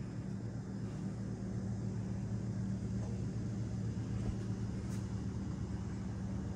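A steady low hum with no change in pitch or level.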